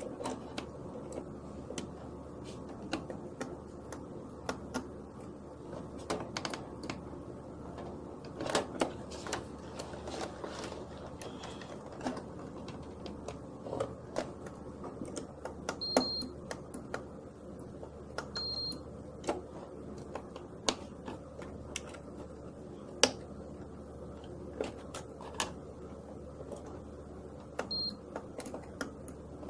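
Irregular plastic clicks and taps as test probes and fingers work on contactors and terminals in an electrical panel, with three short high beeps from a multimeter's continuity test. A low steady hum runs underneath.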